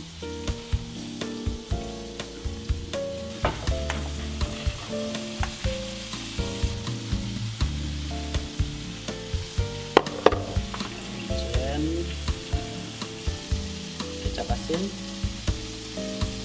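Oil sizzling steadily in a pan on a gas stove, heating to be poured over steamed fish. Background music runs over it: short pitched notes over a beat of about two clicks a second.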